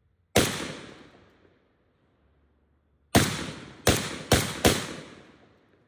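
Zastava M70 AK-47 rifle firing five aimed single shots: one, then after a pause of nearly three seconds four more in quick succession. Each shot trails off over about a second.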